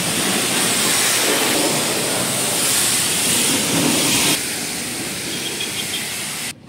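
Steady loud hiss of high-pressure water spraying at a car wash. It drops a step about four seconds in and cuts off suddenly just before the end.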